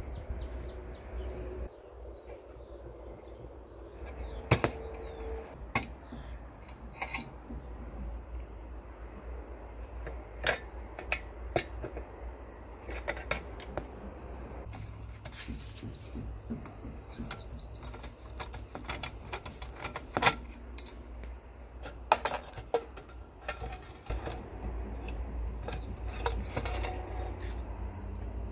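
Irregular small metal clicks, taps and scrapes from a screwdriver and fingers working the parts of a Hasag 351 L petrol pressure lamp loose, with a few sharper knocks, over a low steady rumble.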